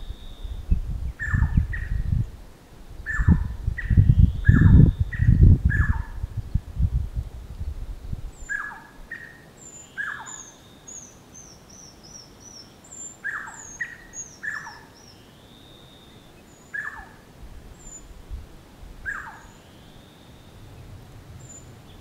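Birds calling: repeated short whistles that drop in pitch, a few rising notes, and a run of quick, high chirps about halfway through. For the first eight seconds or so, loud, irregular low rumbling from wind on the microphone is the loudest sound, then dies away.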